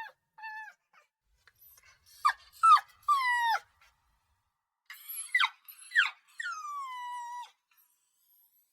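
Puppy crying: high whimpering yelps, each sliding down in pitch, in two clusters, each ending in a longer whine; the last whine is drawn out for about a second before it stops.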